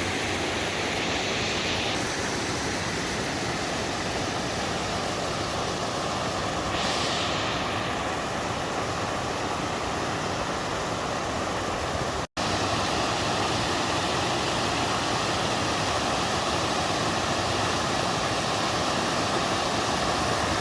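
Water pouring steadily down a three-tiered moss-covered waterfall in a mountain stream, an even rushing sound. It cuts out for a split second a little past halfway, then carries on.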